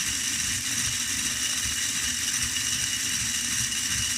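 A 3D-printed button testing rig running under power: its small electric drive motor whirs steadily with a high whine.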